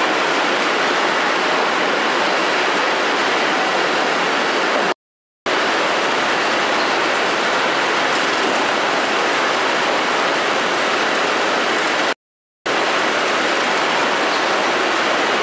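Steady, dense machinery noise from a cucumber grading and packing line's conveyors, cutting out completely twice for about half a second.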